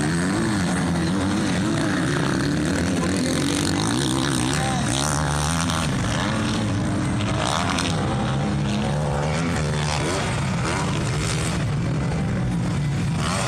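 Motocross bike engines revving on the track, their pitch rising and falling as the riders open and close the throttle over the jumps and corners.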